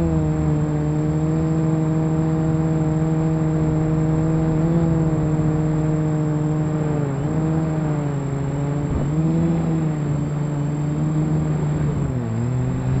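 Quadcopter's electric motors and propellers humming steadily in flight, the pitch dipping briefly three or four times as the throttle eases and recovers, over a thin steady high whine.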